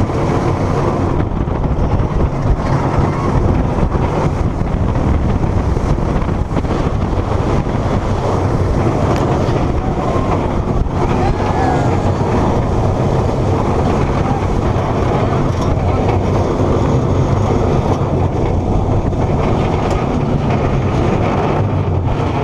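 Millennium Force steel roller coaster in motion from a seat on the train: a loud, steady rush of wind over the microphone mixed with the rumble of the train's wheels on the track.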